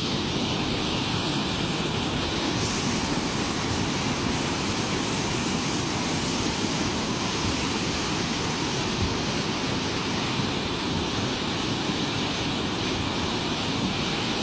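Steady rushing of a muddy flash flood's leading edge flowing down a dry riverbed, with low wind noise on the microphone. The hiss grows a little brighter about three seconds in.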